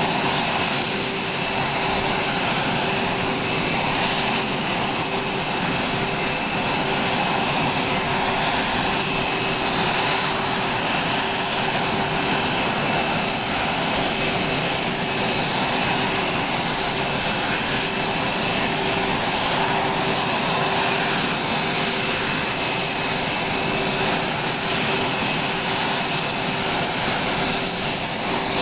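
Jet aircraft turbine running steadily: a constant high-pitched whine with several unchanging tones over a rushing noise.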